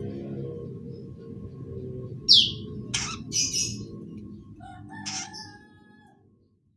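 Young long-tailed shrike (pentet) giving a few short, harsh calls, one a quick falling squeal and another buzzy, the chattering of a chick learning to sing. A low steady background sound underneath fades out near the end.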